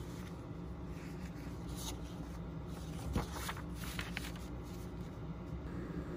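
Steady low room hum with a few soft rustles and light clicks of something being handled, the sharpest about three seconds in.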